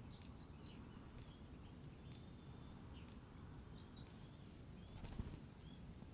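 Faint, short, high bird chirps and calls scattered through, over a steady low background rumble. A soft thump about five seconds in is the loudest moment.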